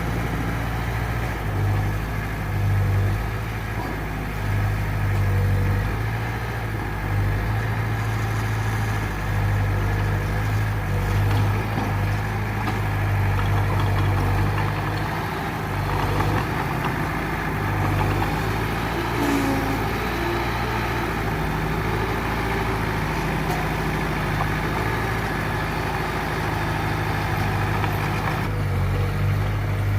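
Diesel engine of heavy earth-moving machinery running steadily, its low hum swelling and easing every few seconds as the load changes.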